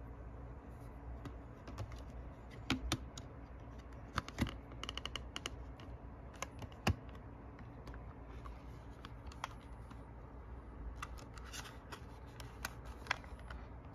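Scattered small plastic clicks and taps from handling a Sony WM-51 cassette Walkman as an AA battery is pushed into its battery compartment and the cassette door is opened, with a quick run of clicks about four seconds in and a sharper click near seven seconds.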